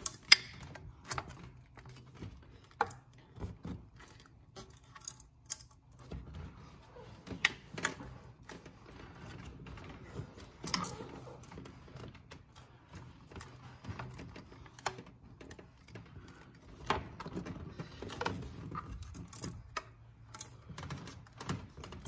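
Hand-fitting noises: irregular clicks, knocks and light metallic jangling with rustling between, as a metal coolant pipe with a silicone boot and T-bolt clamp is worked against the plastic radiator fan shroud while it refuses to line up. A sharp knock just after the start is the loudest.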